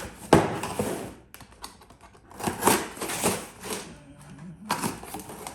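Product packaging being handled and opened by hand: a sharp knock just after the start, then short bursts of rustling and clicking.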